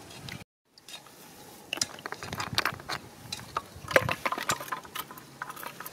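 Hand rummaging inside a clay pot of snails: a quick run of small clicks and rattles, busier in the second half. The sound drops out completely for a moment about half a second in.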